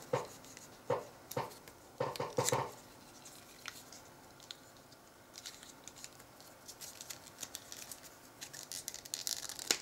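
Handling of a removable leather hanger being fitted onto a wooden knife sheath: scattered clicks and light scrapes of leather and metal fittings, with a few sharper knocks early on and a denser run of small clicks near the end.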